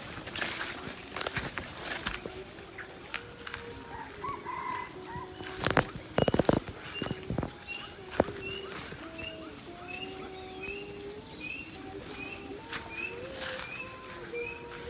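Red junglefowl calling in the forest, over the steady high whine of insects and a short chirp repeating under a second apart, with a few sharp knocks about six seconds in.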